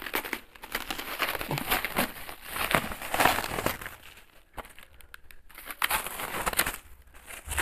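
Thin polythene wrapping crinkling and crackling as it is peeled off a chopping board and bunched up by hand, with a short lull a little past halfway.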